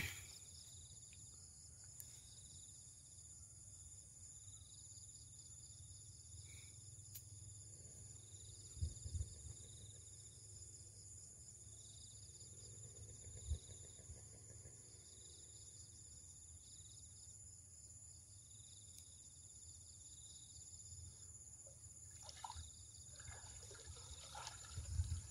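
Faint insects droning steadily in high-pitched tones, with a short chirp repeated at a regular pace that stops near the end. A few soft knocks stand out.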